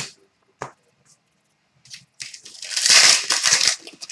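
A few light clicks, then about halfway through some two seconds of dense crinkling and tearing: a foil trading-card pack wrapper being ripped open and crumpled.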